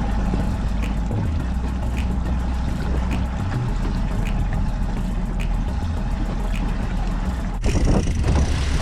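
Boat engine running steadily with a low rumble; the sound changes abruptly a little over a second before the end.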